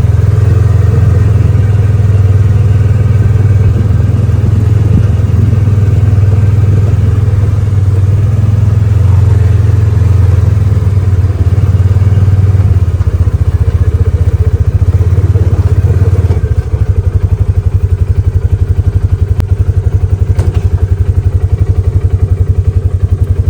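An engine running steadily close by. About two-thirds of the way through, its note turns to a more evenly pulsing beat.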